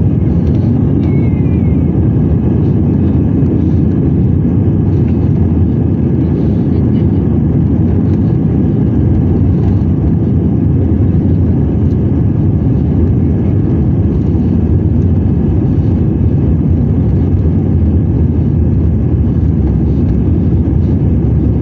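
Steady, loud low rumble of engine and rolling noise inside the cabin of an Airbus A320-200 moving along the ground before takeoff.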